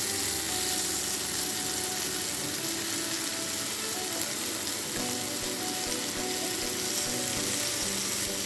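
Marinated chicken pieces sizzling steadily as they shallow-fry in butter and oil in a pan over a medium-low flame.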